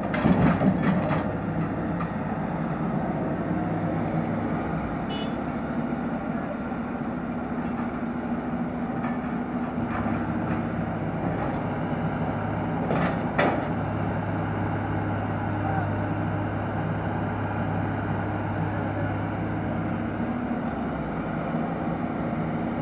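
Heavy diesel engine of a Kato hydraulic excavator running steadily under load. A loud rattle of soil drops from the bucket into a steel tipper-truck body in the first second, and a single sharp knock comes about halfway through.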